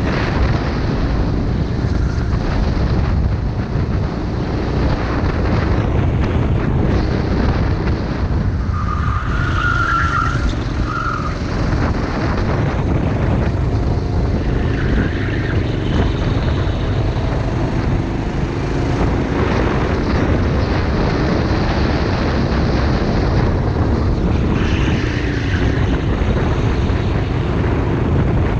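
Onboard sound of a racing kart's engine at full race pace, its pitch rising and falling as it accelerates and lifts through the corners, with wind buffeting the microphone. A short high squeal comes about ten seconds in.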